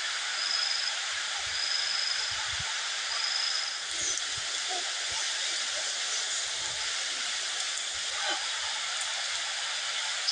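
Steady hiss of running water. A high, thin call repeats three times, about one and a half seconds apart, in the first four seconds.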